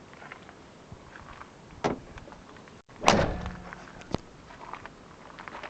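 A car door on the 1991 Jeep Grand Wagoneer slamming shut once, a little past halfway, after a sharp click about a second earlier. A lighter click follows about a second after the slam.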